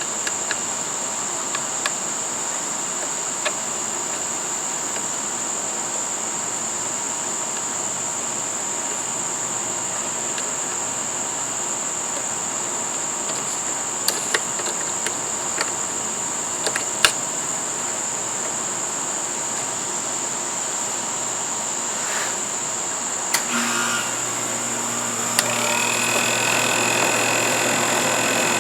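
Parkside bench-top disc sander's small motor running steadily with a high whine, with a few sharp ticks. Toward the end a lower hum joins and the sound grows louder.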